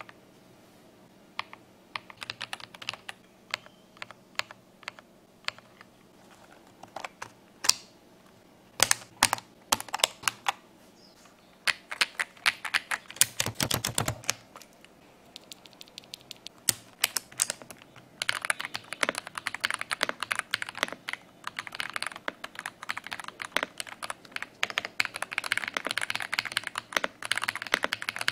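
AJAZZ AK870 mechanical keyboard: scattered single keystrokes and short runs of presses, then from about two-thirds of the way in a continuous stream of fast typing.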